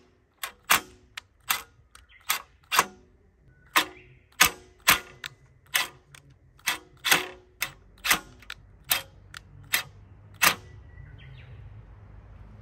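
A run of sharp knocks, roughly two a second and unevenly spaced, some with a short ringing tail, stopping about ten seconds in. A faint low hum comes up behind them in the second half.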